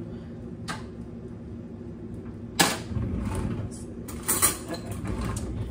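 A serving utensil clattering and scraping in a baking dish of baked chicken thighs. A sharp knock comes about two and a half seconds in, then a stretch of scraping and clatter with more knocks near the end.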